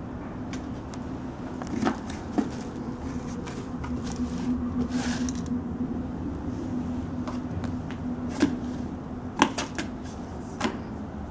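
A cat pawing at a cardboard puzzle box, with scattered sharp taps and knocks on the cardboard and a short scratchy rustle about halfway through. A faint steady low hum runs underneath.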